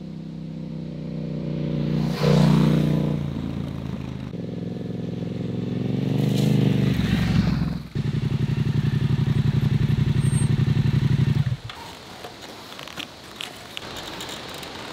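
Yamaha Ténéré 700's parallel-twin engine. It sweeps past loudly about two seconds in, then accelerates with rising pitch, then runs steadily with an even rapid pulse. About twelve seconds in it stops, leaving quieter clicks and scrapes.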